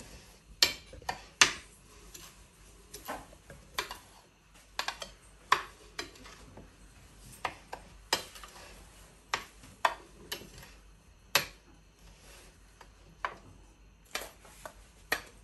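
Metal spoon clinking and scraping against a ceramic plate while stirring a dry breadcrumb and flour mixture: irregular sharp clicks, roughly one or two a second.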